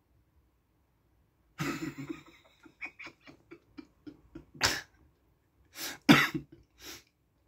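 A person's harsh, breathy throat sounds in short bursts, like coughs: a cluster about one and a half seconds in, a quick run of short ones, then several louder single bursts near the end.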